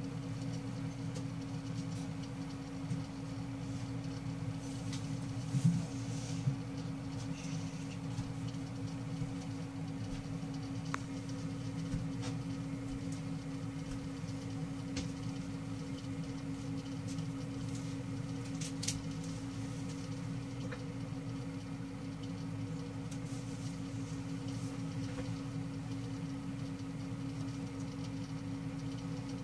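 A steady low hum, with a few faint clicks and scratches about six seconds in and again past the middle.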